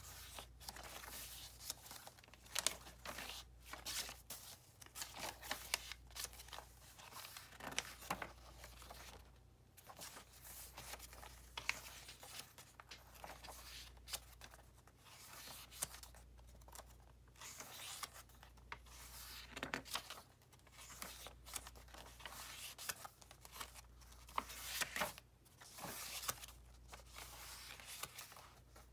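Pages of a handmade junk journal turned one after another by hand: dry paper rustles and swishes as each vintage stained, parchment and ledger-type leaf is lifted and laid over, coming irregularly about once a second.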